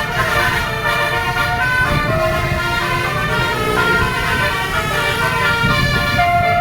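Family Trans bus's multi-tone 'telolet' horn playing a stepping melody of held notes, over a low rumble of engine and road noise.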